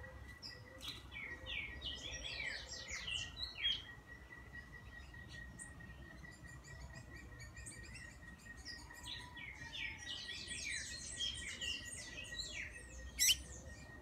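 Blue-gray tanager singing: two bursts of rapid, squeaky twittering notes, the first from about one to four seconds in, the second from about the middle to near the end, closing on one loud, sharp rising note.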